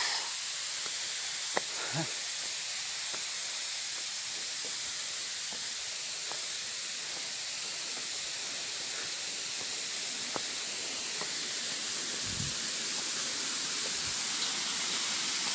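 Steady rush of stream water, growing a little louder near the end, with a few light footsteps on a leaf-strewn path.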